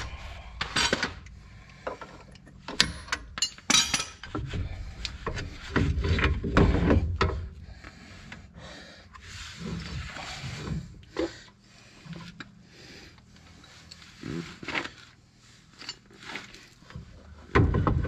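Irregular clinks, knocks and scraping of hand tools and metal suspension parts being handled and worked on, loudest in the first few seconds.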